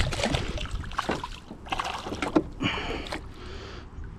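A hooked fish thrashing and splashing at the water's surface beside a kayak: a quick run of splashes in the first second or so, then a few shorter bursts of splashing.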